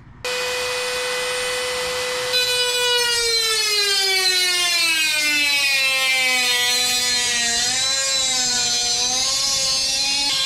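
Handheld rotary tool with an abrasive cutoff wheel switching on with a steady high whine, then, about two seconds in, biting into the aluminum spar: a grinding hiss joins in and the whine sinks steadily in pitch as the motor slows under the load of the cut, wavering as the cut goes on.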